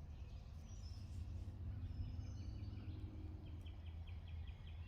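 Faint outdoor background: a steady low hum with thin bird calls over it, ending in a quick run of short repeated chirps.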